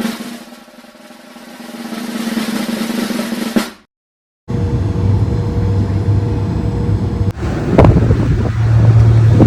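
A snare drum roll swelling in loudness, then cutting off. After a short silent break, a different steady low hum with a couple of sharp knocks takes over.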